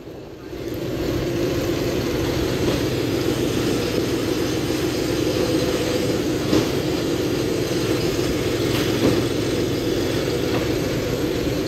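A John Deere tractor's diesel engine running steadily while driving along, coming up in level over the first second.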